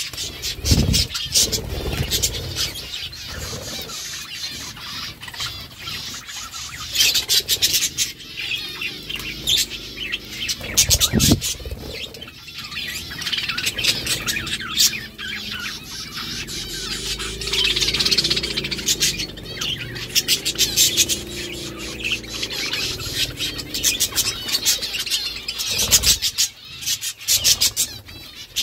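A group of budgerigars chirping and chattering steadily, with a few dull thumps.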